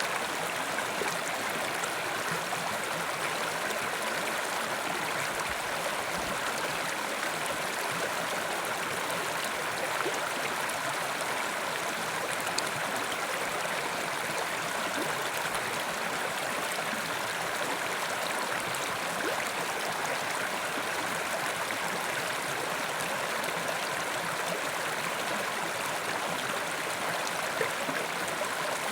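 Mountain river rushing steadily over rocks, an even wash of flowing water with small splashes and gurgles.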